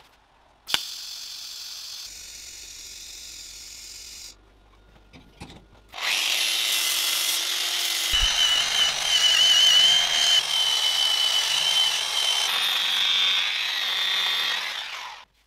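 A TIG welding arc starts with a sharp click and hisses steadily for about three and a half seconds on stainless steel tube. After a short pause, a much louder angle grinder runs against the stainless weld joint for about nine seconds, a steady whine that wavers in pitch, then cuts off abruptly near the end.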